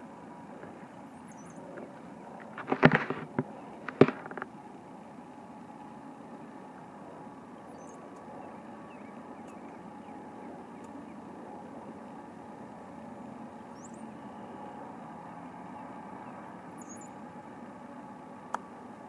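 Steady open-air background, with faint high chirps a few times, probably birds. About three seconds in there is a quick cluster of sharp knocks, and a second later one loud click.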